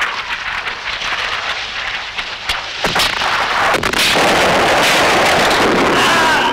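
Battle sound effects of gunfire and explosions: scattered sharp shots, a few cracks about two and a half to four seconds in, then a dense, loud stretch of blasts.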